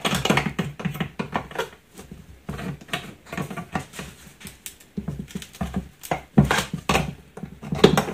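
Pincers gripping, twisting and tearing back the thin metal rim of a sealed metal drum, with irregular scraping, creaking and clicking of the metal being bent, and the foil lining crinkling. The sharpest clicks and scrapes come near the end.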